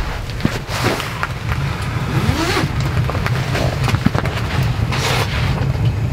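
A steady low rumble under scattered scrapes, light knocks and clinks of cookware being handled around a wood stove.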